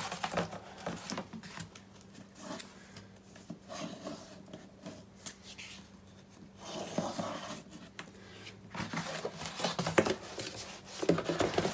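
Utility knife with a dull blade cutting through poster board in several separate scratchy strokes, with clicks and rustles as the board is pressed and shifted between cuts.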